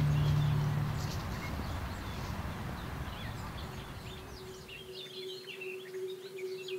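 Small woodland birds singing, with many short chirps and trills. A low steady drone fades out in the first second, and a steady higher tone comes in about four seconds in.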